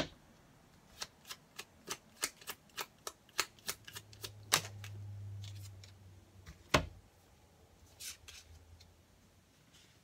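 Tarot deck being shuffled by hand: a quick run of sharp card snaps, about three a second, then one loud knock as cards are put down on the table about seven seconds in, and a few softer card sounds after it.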